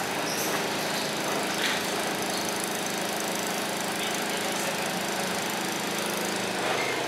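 Winery machinery running: a steady, engine-like drone with a constant low hum.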